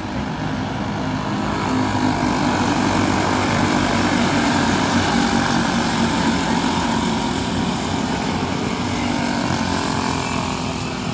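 Engines of a pack of small race cars running hard around the track, several engine notes overlapping. The sound swells as the pack comes by, about two seconds in, and fades toward the end.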